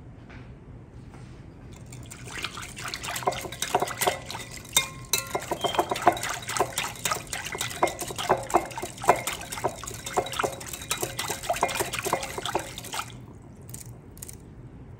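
Wire whisk beating liquid in a glass bowl: rapid clinks of the tines against the glass over sloshing liquid. It starts about two seconds in and stops about two seconds before the end.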